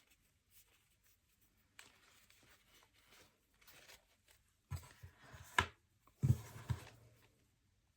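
Hands handling small objects on a table: faint rustling, then a few knocks and a sharp click past the middle as things are picked up and set down.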